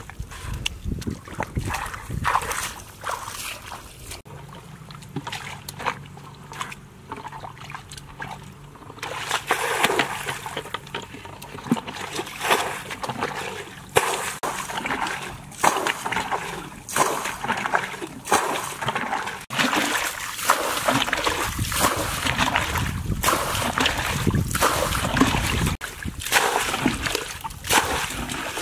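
Muddy water being bailed out of a shallow dammed ditch with a plastic bucket: repeated, irregular splashes of scooped and thrown water, sparse and quieter for the first several seconds and coming thick and louder from about nine seconds in.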